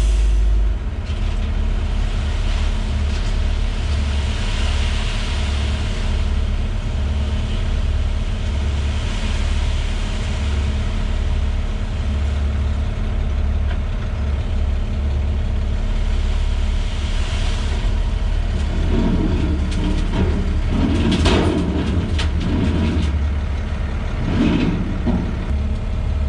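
Heavy equipment's diesel engine running steadily with a deep, pulsing rumble. Near the end come several louder uneven surges and a sharp clank.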